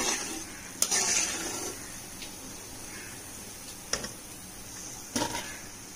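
Pieces of wheat biscuit dough deep-frying in hot oil with a faint steady sizzle. A perforated steel ladle clinks against the metal pot three times: about a second in, around four seconds and just after five.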